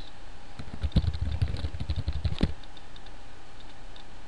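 Typing on a computer keyboard: a quick run of keystrokes for about two seconds that stops about halfway through.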